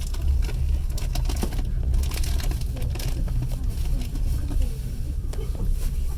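Steady low rumble of a passenger train carriage running along the track, heard from inside, with scattered clicks and rattles that are busiest about one to three seconds in.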